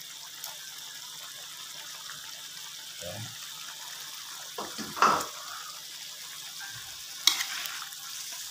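Shrimp sizzling in hot oil and curry spice paste in a wok, a steady frying hiss. A short louder stir sound comes about five seconds in, and there is a sharp knock near the end.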